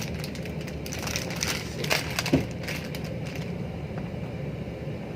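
Speaker packaging being handled: rustling and crinkling with a few sharp clicks and knocks, the loudest a little over two seconds in.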